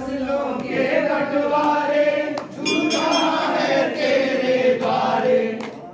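Group of men singing a Hindu devotional Ram bhajan together in chorus, with a few sharp claps or knocks and a brief metallic clink about three seconds in.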